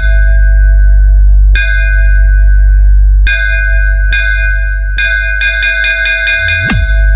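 Electronic dance music from a DJ bass sound-check remix. A bell-like tone is struck about every second and a half over a heavy, sustained sub-bass. Near the end a quick roll of bell hits and a rising bass sweep build to a sharp hit, and the deep bass comes back in.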